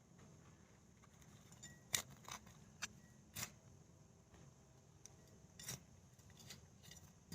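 Faint, scattered scrapes and sharp clicks of digging through dry soil to lift sweet potatoes: about five short clicks, most in the first half.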